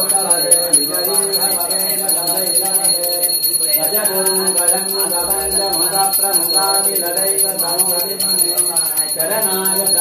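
Devotional music: a sung melody over a steady drone, with a bell ringing along, as for an aarti.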